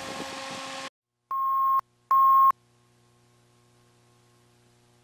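Two short steady beeps of one high tone, each about half a second long, about a second and a half and two seconds in: the line-up tone beeps at the head of a videotape recording, over the slate. A faint noise cuts off just before them, and a faint low hum follows.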